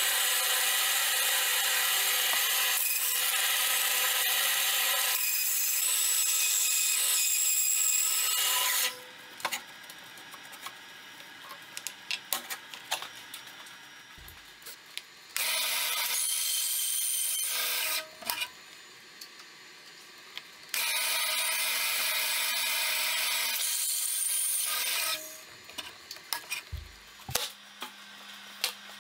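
Bandsaw cutting a wooden board: a loud, steady cutting noise for the first nine seconds, then two shorter cuts of about three and four seconds. Between the cuts there are quieter stretches with scattered clicks of wood being handled.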